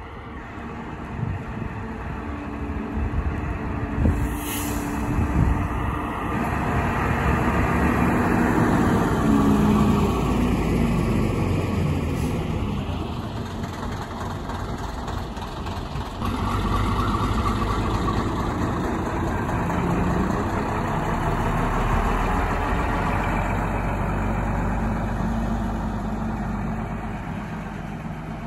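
Double-decker bus's diesel engine running as the bus drives up, passes close by and pulls away, growing louder over the first several seconds and easing off near the end. A sharp click about four seconds in.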